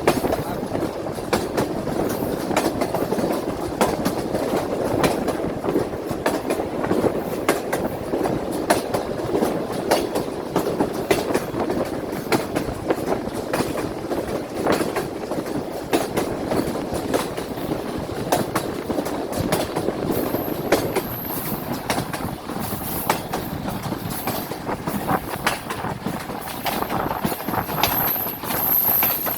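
Passenger train running, a steady rumble of the carriages with the wheels clicking and clattering over the rail joints. A thin high squeal comes and goes in the last third.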